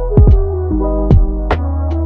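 Electronic background music with a drum-machine beat and held synthesizer chords.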